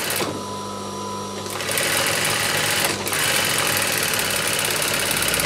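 Industrial sewing machine: the motor hums steadily, then about a second and a half in the machine starts stitching fast along the seam, with a brief pause near the middle before it runs on.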